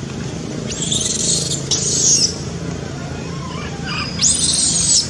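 Baby macaque screaming: three shrill screams, about a second in, two seconds in and near the end, with a fainter squeal just before the last.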